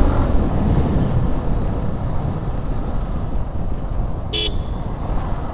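Motorcycle riding along a road, with a steady low rumble of engine and wind noise, and a short horn toot about four seconds in.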